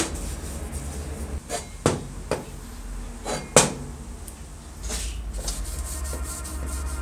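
A few light knocks and clunks as a polished aluminium drill gear housing is handled and set down on the workbench. From about five seconds in, a small pad rubs back and forth in quick strokes on the bare steel motor frame.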